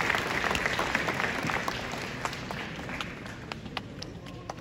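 Audience applauding: a dense patter of hand claps that grows thinner and quieter and dies away.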